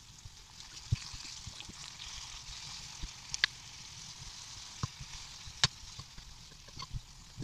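Pieces of peel frying in a pan with a steady sizzle, and several sharp clicks of a metal spoon against the pan as grated tomato is spooned in.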